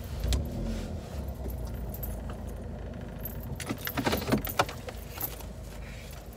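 Jangling and clinking of small objects being handled in a car, over a steady low rumble, with a busier patch of clicks and rustles a little past the middle.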